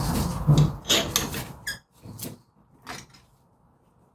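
Metal tools worked against a brake caliper as its pistons are pressed back in: scraping and knocking for about a second, a short squeak, then a few light clicks.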